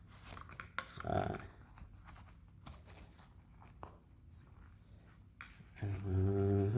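Faint clicks and light handling noise as a small plastic case and connector are opened and turned over by hand, then near the end a man starts humming one steady low note, the loudest sound.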